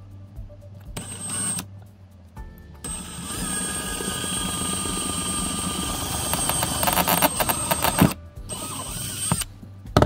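Electric drill boring a hole through a small stainless steel Swiss Army knife tool lubricated with oil: a short burst about a second in, then a steady run of about five seconds with a high whine and rattling clicks near its end, then one more short burst. Background music plays underneath.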